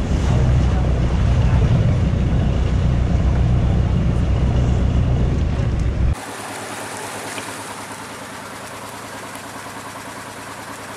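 Boat engine running underway, heard from on board, with water rushing past the hull and some wind on the microphone. About six seconds in it stops at a sudden cut, and a quieter engine idles steadily.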